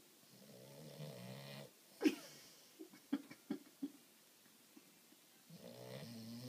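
French bulldog snoring: a long snore, a sharp snort about two seconds in, a few short clicks, then another long snore near the end.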